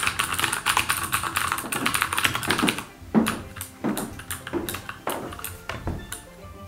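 Fast typing on a Xiaomi Yuemi MK01B mechanical keyboard with clicky blue switches: a dense clatter of keystrokes for about the first three seconds, then a few separate key presses.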